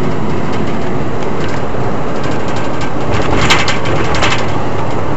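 Steady road noise of a moving vehicle heard from inside, a low rumble of tyres and engine. Light clicks and rattles run through it, with a denser burst of rattling about three and a half seconds in.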